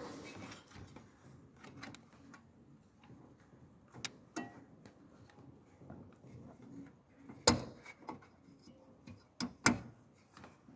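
Sharp plastic and metal clicks from hands working the bulb connector and wire retaining clip inside a Peugeot 308 headlight housing: a few scattered clicks, the loudest about two-thirds of the way in, then two more in quick succession near the end.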